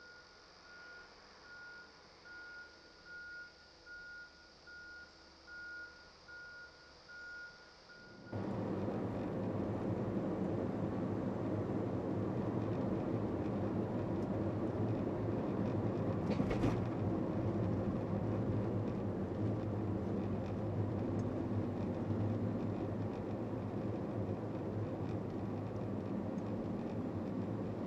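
Quiet ambience with a faint high tone pulsing about one and a half times a second. About 8 seconds in it cuts to a loud, steady rumbling noise with a low hum under it.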